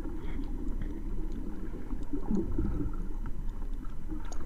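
Muffled underwater sound picked up by a GoPro in its housing while snorkelling over a reef: a steady low rumble of moving water, with a few faint scattered clicks.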